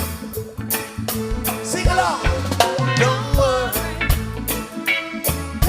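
Reggae song with a steady drum beat and bass; a singing voice comes in about two seconds in.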